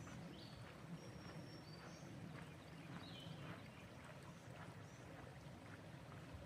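Faint footsteps on a dirt trail, about two steps a second, with a few short high bird chirps over a low steady creek rush.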